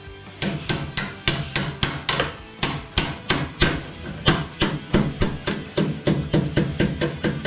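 Hammer blows on metal, about three to four strikes a second, driving the long-tail outdrive's steering handle into a mount made tight by paint.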